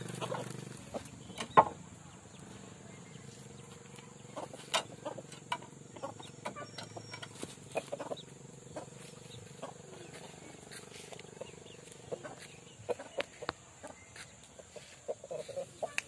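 Aseel rooster giving a few short low clucks near the end, among scattered sharp taps and knocks, the loudest about one and a half seconds in. A motor hum fades out in the first second.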